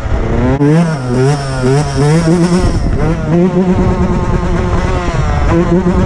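Dirt bike engine revving up and down repeatedly, its pitch rising and falling every second or so.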